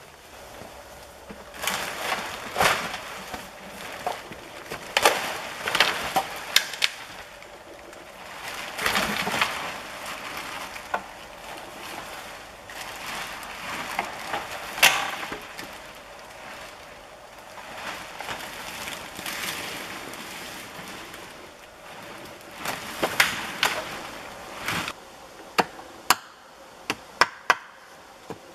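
Wooden poles and branches of a pole-frame bush shelter scraping, cracking and snapping as the shelter is levered apart and pulled down. Bursts of rustling and scraping come with sharp cracks, and a quick run of sharp snaps comes near the end.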